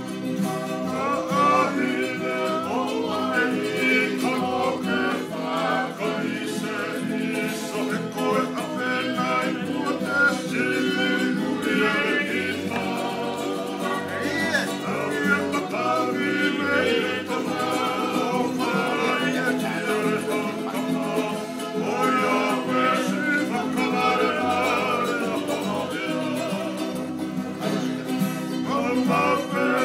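A Tongan string band playing: plucked and strummed guitar-type strings, with voices singing along.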